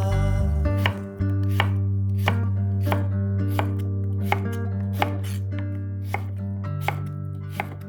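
Knife chopping on a cutting board: single, even strokes about every 0.7 s, over soft background music with long held notes.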